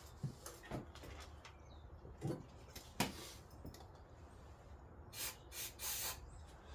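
Light, scattered clicks and knocks of hands and parts being handled on a motorcycle, with a few short hissing sounds about five seconds in. The engine is not running.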